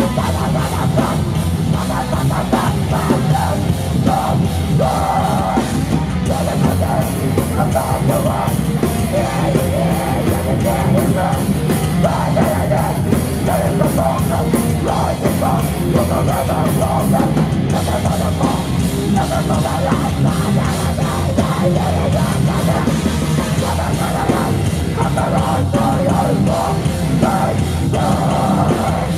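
Hardcore punk band playing live: distorted electric guitar and bass over fast drums, with shouted vocals.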